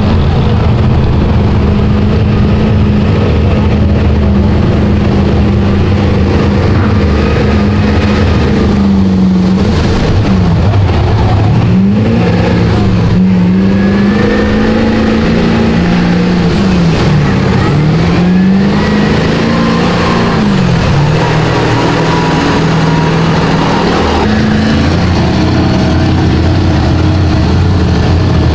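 Mega mud truck's engine at high revs, held steady, then revving up and down several times through the middle as the truck fights through deep mud, with its tires churning mud and water.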